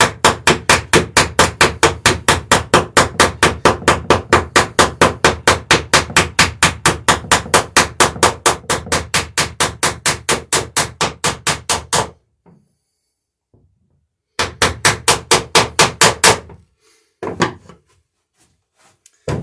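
Ball-peen hammer peening copper rivets on a wooden dory's planking: a fast, even run of light metallic blows, about five a second, for about twelve seconds. Then a pause and a shorter run of about two seconds.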